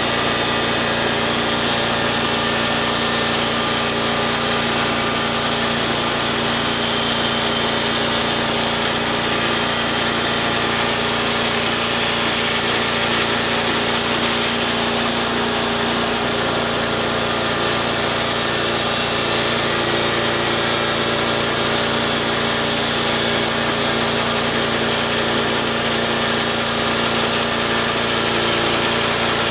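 Portable bandsaw mill running steadily under load, its band blade cutting lengthwise through a mesquite log with a constant motor hum and saw hiss.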